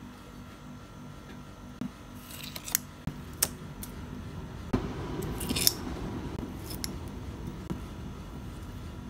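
Scissors snipping a few times, with sharp clicks, as they cut into the rubbery skin of a goo-filled Buzz Lightyear stretch toy. The snips fall through the middle of the stretch.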